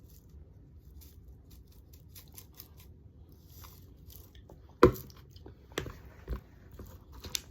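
Eating sounds from a plate of fried noodles: faint scattered clicks and chewing, then a sharp clink of cutlery on the plate about five seconds in, followed by a few lighter knocks.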